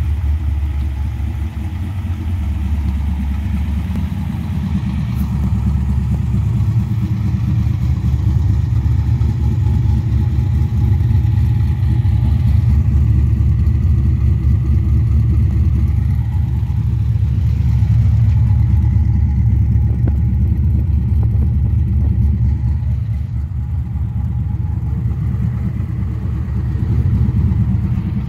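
383-cubic-inch LS1-based V8 running through a 3-inch true dual exhaust with Hooker Aero Chamber mufflers. It holds a steady, deep exhaust note that rises and falls slightly a few times.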